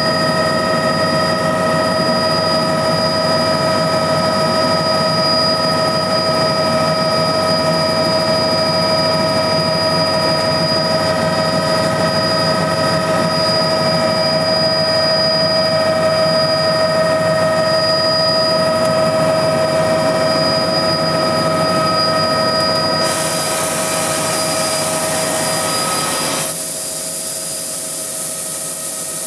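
Helicopter cabin noise in flight: a steady, loud rush of engine and rotor with a constant high whine of several tones. Near the end a high hiss comes up and the whine falls away.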